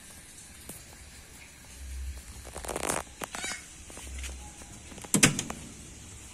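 Small metal barrel-bolt latches on the wooden cabinet doors of a food cart being worked by hand. A quick run of rattling clicks comes about two and a half seconds in, and a single sharp clack, the loudest sound, about five seconds in.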